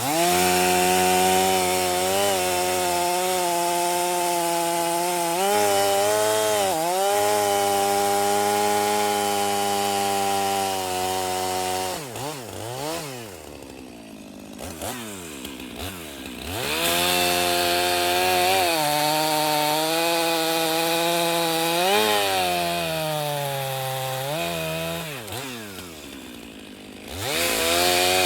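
Stihl two-stroke chainsaw running at full throttle while cutting wood, its note dipping now and then under load. It eases off to a low, wavering idle about halfway through and again near the end, then revs back up.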